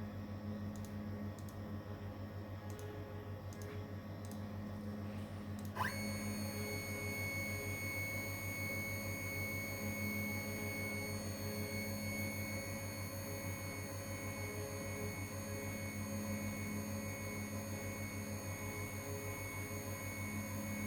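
Jewelry CNC wax-milling machine humming steadily, then about six seconds in its spindle spins up with a quick rising whine and runs on at a steady high-pitched whine.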